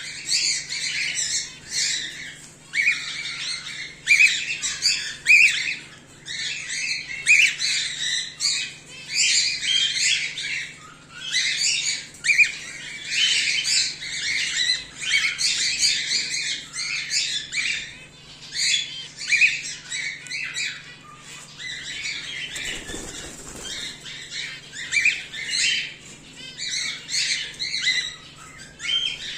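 Cockatiels chirping and squawking nonstop, many short calls overlapping. A brief rustling burst, like flapping wings, comes about three-quarters of the way through.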